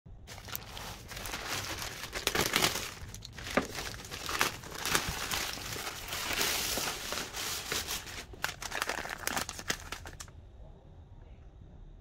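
Plastic courier mailer bag rustling and crinkling as it is opened and a boxed speaker is pulled out of it. The crinkling stops about ten seconds in.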